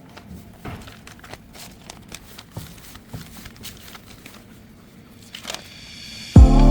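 Faint scattered clicks and light rustling, small handling noises. Near the end, loud music starts suddenly.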